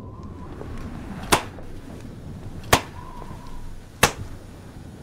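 A knife's flat blade slapped against an open palm, one sharp smack about every second and a third, repeated.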